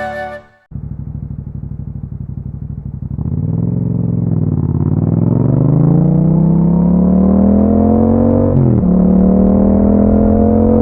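Yamaha MT-07's parallel-twin engine through an Akrapovic exhaust: idling with an even pulse, then pulling away and accelerating with rising pitch, dropping sharply at an upshift about eight and a half seconds in and climbing again. Intro music fades out at the very start.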